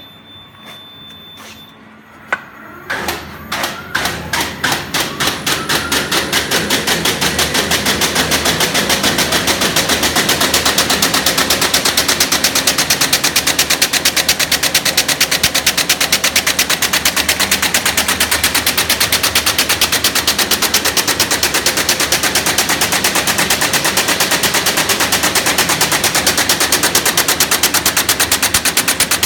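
PM-05 napkin rewinding and perforating machine starting up: a series of sharp mechanical knocks, a few a second at first, speeding up over several seconds into a rapid, even clatter that then runs steady at working speed, typical of the perforating knife striking on each turn.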